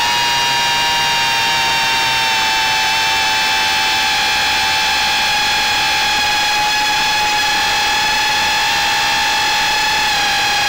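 The quadcopter's four DYS 1306 brushless motors spin 3-inch Gemfan props with a high, steady whine held at a near-constant pitch, as heard through the onboard flight camera's microphone.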